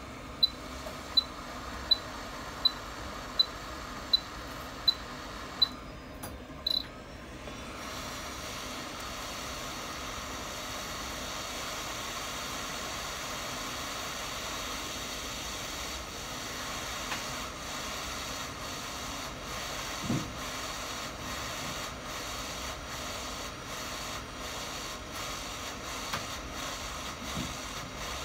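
Hot air rework station: a run of short high beeps, about one every three quarters of a second, for the first six seconds, then from about eight seconds the steady hiss of hot air blowing from the nozzle onto a phone logic board to heat a chip for removal.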